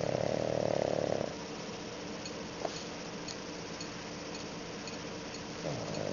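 A pug snoring: one long buzzing snore for about the first second, then a quieter stretch broken by a single click, and another snore starting near the end.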